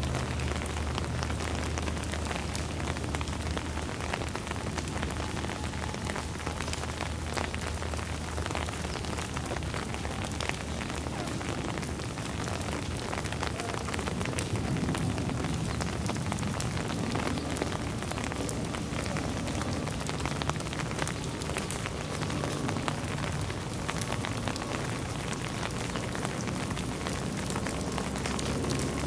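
Steady rain falling, with many separate drops ticking on surfaces, over a low steady hum.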